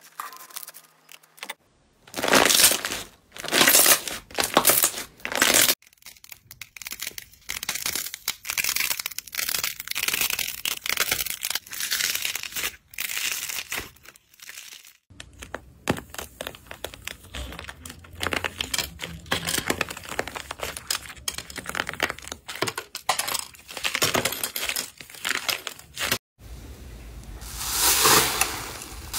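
Slime being handled by hand in a run of short takes: thick slime stretched and pulled apart with dense crackling and tearing, then a hand pressing into foam-textured slime. The sound changes abruptly several times between takes.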